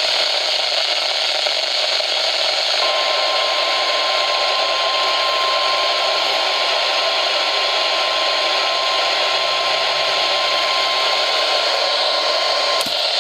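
NOAA Weather Radio warning alarm tone: one steady tone of about 1050 Hz held for about ten seconds, heard through loud, constant radio static hiss. The tone starts about three seconds in and cuts off with a brief click near the end.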